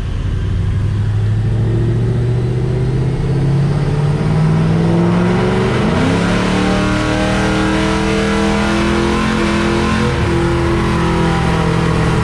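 A Ford 4.6L 3-valve V8 running through long-tube headers, an X-pipe and a Borla axle-back, under full load on a chassis dyno in fourth gear. Its pitch climbs steadily for about six seconds, hitches briefly, then holds high and roughly level. That is the kick near 5,200 rpm that the crew takes for an extra rev limit or the high-stall torque converter flashing.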